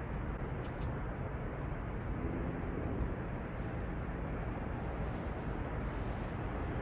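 Juncos giving a few short, high chip notes amid scattered faint high ticks, over a steady low background rumble.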